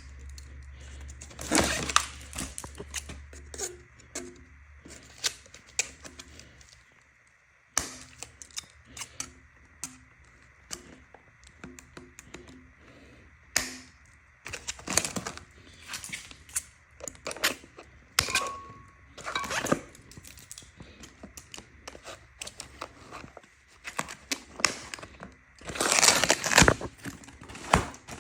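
Scissors snipping thick plastic zip ties and the e-bike's packing being pulled away: scattered clicks, snaps and knocks with rustling, loudest in a burst near the end.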